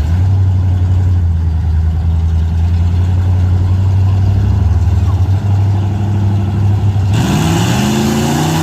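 Big-block Chevy V8 drag cars running steadily at the starting line, then launching about seven seconds in, the engine note climbing sharply as they accelerate.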